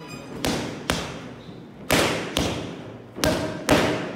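Boxing gloves striking Rival pro focus mitts: three quick one-two combinations, each a pair of sharp smacks about half a second apart, with the pairs coming about every second and a half. Each smack has a short echoing tail.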